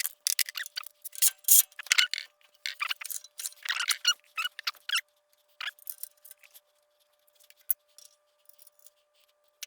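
Metal tools and engine parts clinking and clattering as they are handled during small-engine reassembly: a dense run of irregular clicks and knocks for about five seconds, then only scattered clicks.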